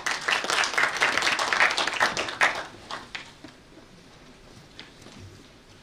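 Audience applauding, dying away after about three seconds.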